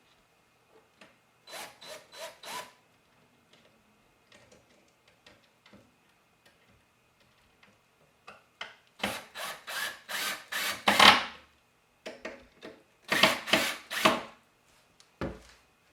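Quick rasping strokes of a hand tool working wood, a few strokes a second, in three short bursts with pauses between them; the middle burst is the loudest. A single low thump comes near the end.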